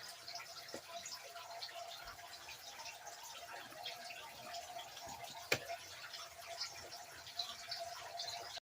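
Faint running of a small model train locomotive: a steady motor hum with scattered light clicks and one sharper click about five and a half seconds in.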